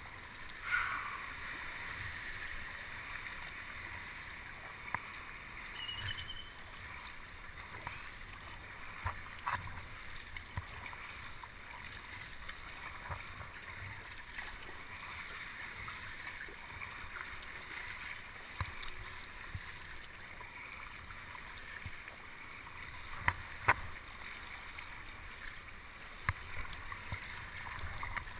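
Water sloshing and splashing around a kayak in rough water, a steady wash with scattered sharp knocks, the loudest one near the start and two close together near the end.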